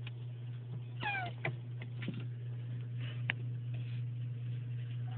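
A mating turtle's call: one short, falling squeal about a second in, followed by a few sharp clicks, over a steady low hum.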